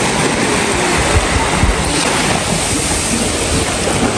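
Small sea waves washing onto a sandy shore, a steady rushing hiss, with wind rumbling on the microphone.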